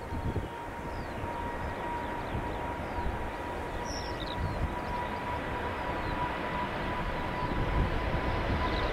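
Jet engines of a Boeing 777-300ER (GE90s) whining with a single steady tone that creeps slightly up in pitch as the sound slowly grows louder. Gusty wind buffets the microphone underneath.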